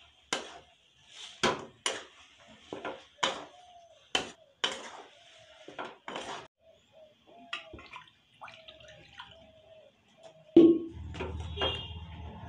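A steel spatula scrapes and knocks against a steel kadai as taro curry is stirred, about ten strokes in the first six seconds. Near the end there is a loud bump followed by low rumbling handling noise as the camera is moved.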